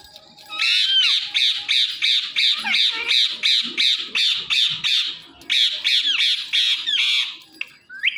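Indian ringneck parakeet squawking in a fast, harsh run of calls, about three a second, with a short whistled glide about a second in. The calls start about half a second in and stop near the end.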